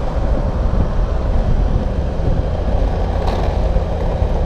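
Steady road noise of a car driving along a street, with a towed longboard's wheels rolling on the asphalt beside it. A faint steady low hum joins about halfway through, and there is one short click a little before the end.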